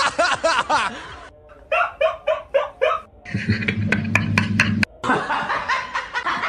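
Laughing sound effects edited back to back: wavering snickers at first, then a run of short rhythmic 'ha-ha' laughs, then more laughter after a stretch of low hum with clicks in the middle.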